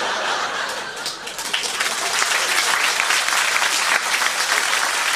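Live audience applauding, the clapping growing denser and louder about a second and a half in.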